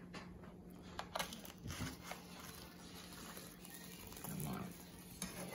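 Faint kitchen-tong handling of baked puff-pastry beef Wellingtons on a metal baking sheet: a few light clicks and crinkles of crisp pastry.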